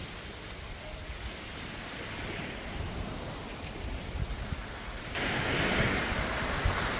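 Sea surf washing onto the beach, with wind buffeting the microphone. The hiss grows suddenly louder about five seconds in.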